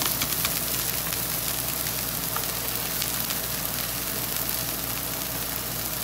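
Onions, shredded carrots and diced chicken frying in oil on a Blackstone flat-top griddle: a steady sizzle with scattered light crackles.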